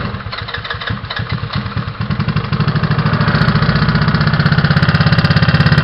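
GY6 single-cylinder four-stroke scooter engine just fired up, running unevenly at first and settling into a steady, fast-pulsing idle after about two seconds. It carries an odd noise that the owner suspects may come from the valves.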